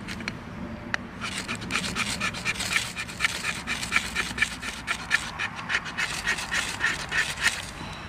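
A knife blade scraping rapidly in quick strokes, about five a second, starting about a second in and stopping near the end, shaving fine tinder for a fire. A couple of light clicks come just before it.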